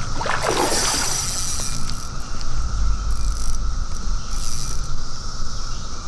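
Steady high drone of a periodical cicada chorus, with wind rumbling on the microphone and a brief rushing sound in the first second.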